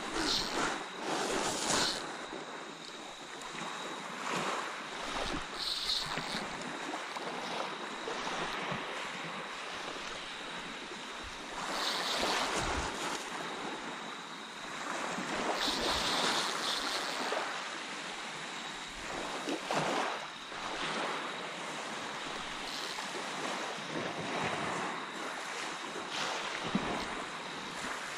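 Small waves lapping and washing up on a beach, swelling and easing every few seconds.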